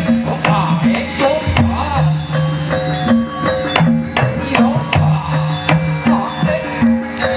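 Javanese gamelan music for a jaranan (kuda lumping) horse dance: hand-drum strokes over a repeating pattern of held pitched notes, in a steady rhythm with many sharp strikes.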